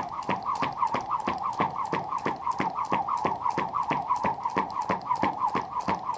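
Jump rope whirring round and slapping the ground in a steady rhythm, about three slaps a second, with a wavering whistle from the rope cutting through the air on each turn.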